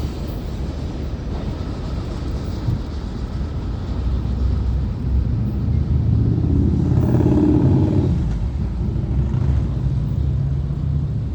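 Freight cars of a long mixed freight train rolling past with a steady low rumble. The rumble swells for a couple of seconds in the middle, where a brief whine rises over it.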